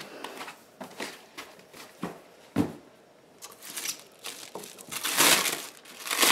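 Plastic stretch wrap crinkling and rustling under hands, with a few short knocks from the packing, and the loudest crinkle about five seconds in.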